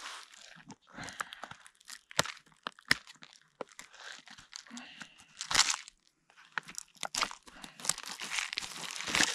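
Plastic instant-noodle packaging being crinkled and torn open by hand: irregular rustling and crackling with sharp snaps, the loudest about five and a half seconds in.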